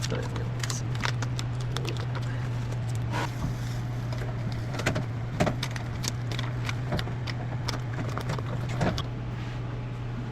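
A steady low hum with scattered short clicks, taps and rustles of hands at work, typical of taping and handling foam insulation panels.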